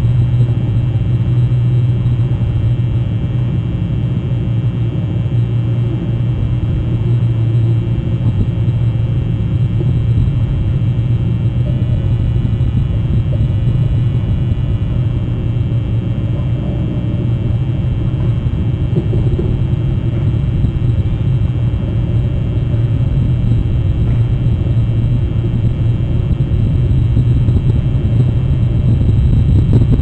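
Steady low rumble with no distinct events.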